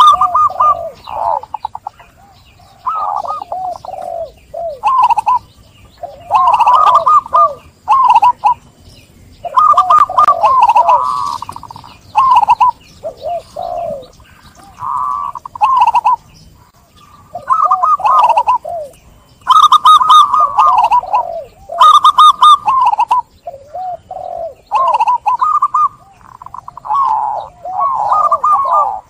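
Zebra doves (perkutut) cooing: phrases of rolling, bubbling coo notes repeated every second or two with short pauses, sometimes overlapping as more than one bird calls.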